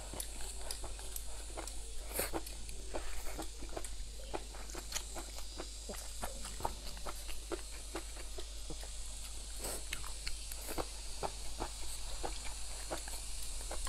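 Close-up eating sounds: wet chewing and lip smacking of a mouthful of fried pork belly, an uneven run of small clicks and smacks several times a second.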